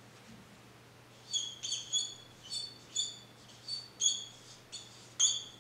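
Whiteboard marker squeaking against the board while a word is written: a quick string of about ten short, high squeaks, starting about a second in.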